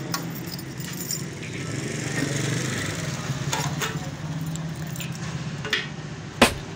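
Metal clinks at an open motorcycle fuel tank as a petrol pump nozzle is put into the filler neck, with a sharp click near the end, over a steady low machine hum.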